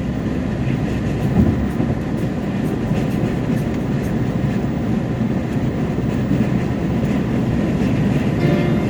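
Steady, even low rumbling noise, unbroken throughout, like the running noise of a vehicle or train.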